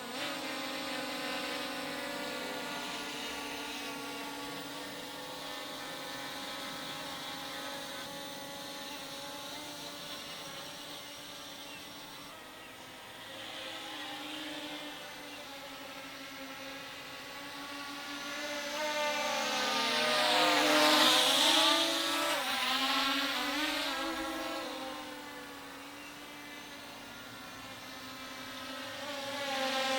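Multirotor drone propellers buzzing steadily while hovering. About twenty seconds in it comes close and passes, getting louder with its pitch bending, then falls away. It starts to come closer again near the end.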